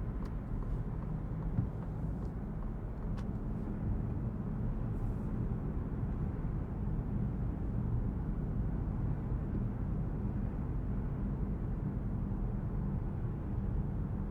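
A Citroen C5 Aircross's 1.5-litre diesel and tyres on the road while driving: a steady low rumble of engine and road noise, with a couple of faint ticks.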